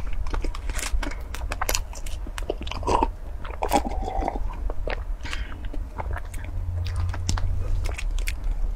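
Close-miked mouth sounds of chewing soft cream pastry, with many small wet clicks and smacks. About three to four seconds in come swallowing gulps of a banana milkshake.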